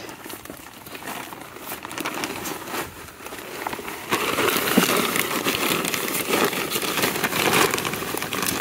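Plastic bag of garden soil crinkling as it is handled and shaken, with the soil pouring out of it onto a seed tray. It is low at first and becomes much louder about four seconds in.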